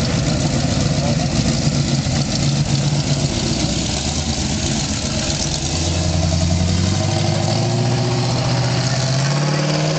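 Vehicle engines running: a steady engine drone throughout, joined about halfway through by a second engine whose pitch rises slowly for several seconds.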